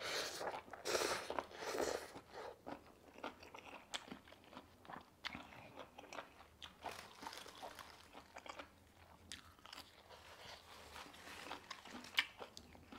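Close-miked eating sounds: a mouthful of instant noodles slurped in over the first two seconds or so, then steady chewing with many small mouth clicks.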